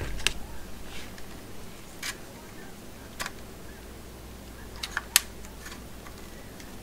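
Scattered light plastic clicks and taps from handling small voltage testers and their storage cases, with a sharper click about five seconds in.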